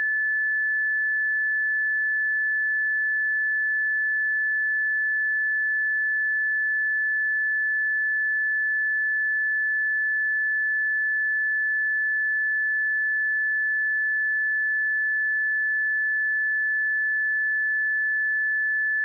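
A steady 1737 Hz sine-wave test tone, one pure high-pitched note held at a constant level.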